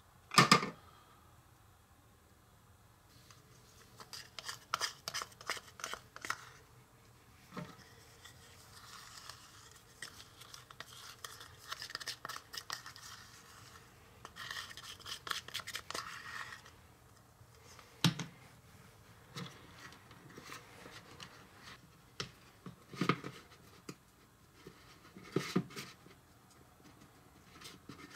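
Small silicone spatula scraping thick chocolate cake batter out of a plastic bowl into a small metal cake pan and spreading it. There is a sharp click just after the start, a quick run of clicks a few seconds in, then spells of soft scraping and a few light knocks against the pan.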